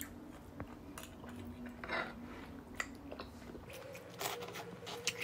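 Quiet eating: chewing with a few light clicks of cutlery against a dish, the loudest about two seconds in.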